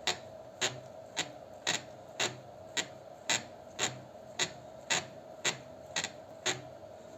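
Motorcycle starter motor turned slowly by hand, giving a dozen sharp clicks, about two a second, in one direction only. It is the scraping, clicking noise behind the bang when the bike is started, which the mechanic puts down to wear or dirt inside the starter motor.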